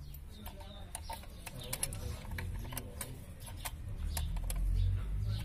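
Pliers and a metal hose clip clicking irregularly, several light clicks a second, as a vacuum hose is fitted by the carburettor air cleaner. A low rumble of handling builds about four seconds in.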